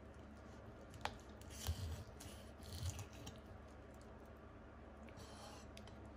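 Deba knife cutting through a black sea bream's collar bones on a wooden board: a sharp click about a second in, then two short bouts of crunching with dull knocks, and a fainter crackle near the end.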